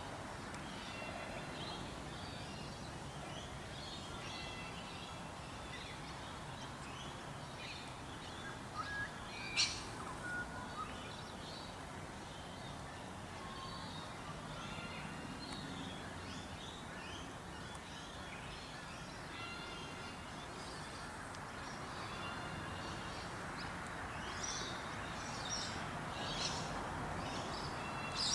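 Birds chirping and twittering with short high calls scattered over steady background noise, one sharp call about ten seconds in, and busier chirping near the end.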